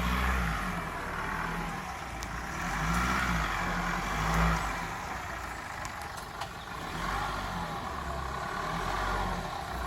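Nissan Patrol 4x4's engine revving in repeated surges under load as it drives forward out of deep mud.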